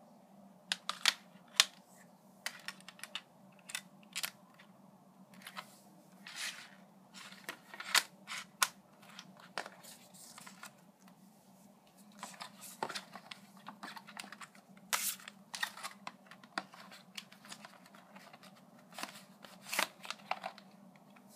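A clear plastic CD jewel case being handled: irregular sharp clicks and clacks with short rustles, spread through the whole stretch.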